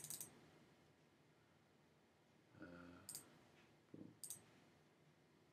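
Faint computer mouse clicks over quiet room tone: a quick double click at the start, then single clicks about three and about four seconds in. A brief faint hum comes just before the second click.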